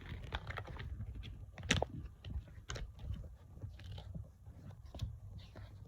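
Weather radio being handled, with scattered sharp plastic clicks from its buttons being pressed over low handling rumble. The loudest click comes a little under two seconds in.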